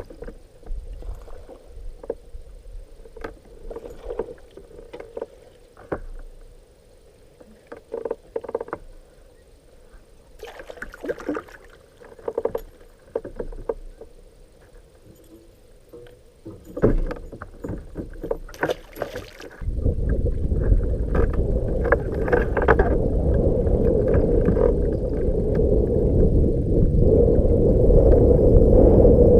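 Scattered knocks and clicks, then, about two-thirds of the way in, a boat under way takes over: its motor runs loudly and steadily with water and wind noise, growing slightly louder toward the end.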